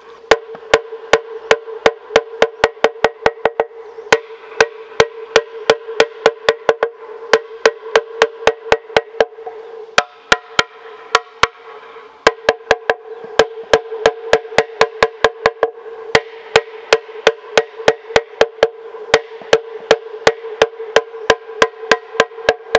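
Hollow bamboo slit clapper knocking in a quick run, about three sharp hollow knocks a second, each ringing briefly, with a couple of short pauses.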